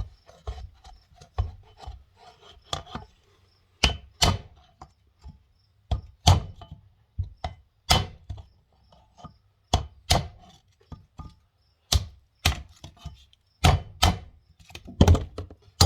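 Hammer blows on a wooden drift set against a seized bearing in a tractor's front final drive housing, lighter taps at first and then harder strikes, often in quick pairs, from about four seconds in. The bearing is not moving.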